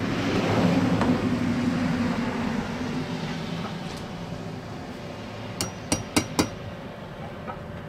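Claw hammer tapping the mounting bolts of a metal hose-reel bracket into a drilled cement wall: four quick, sharp taps within under a second, near the end. Before them, a loud rushing noise with a low hum starts suddenly and fades away over the first few seconds.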